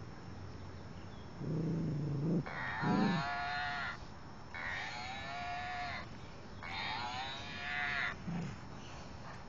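Cow-shaped dog toy giving out a recorded moo three times, set off by a cocker spaniel playing with it. Each moo lasts about a second and a half, and the first one begins low.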